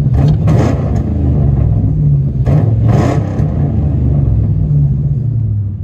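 Ford Mustang 4.6-litre V8 with an aftermarket exhaust, revved in place. The engine rumble rises twice, about half a second in and again around three seconds in, then eases back toward idle near the end.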